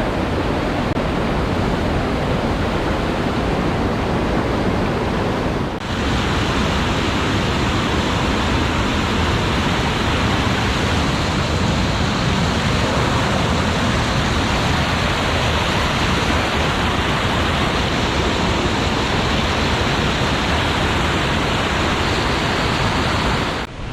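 Loud, steady rushing of water, an even roar with no distinct events. About six seconds in the sound shifts abruptly and carries on just as steady.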